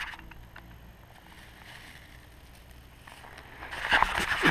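Faint steady outdoor background with a light low rumble, then, about three and a half seconds in, a louder rustling and crackling of a dry tinder bundle being handled.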